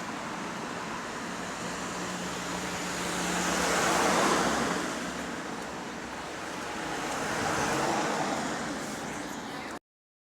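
Bus engine running with road traffic noise, a low steady hum under a broad rushing noise that swells twice, about four and about eight seconds in. The sound cuts out abruptly near the end.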